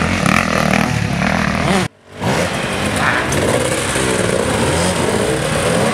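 Enduro dirt bike engines revving, rising and falling in pitch. The sound drops out briefly about two seconds in, then several bikes are heard revving on a steep, muddy climb.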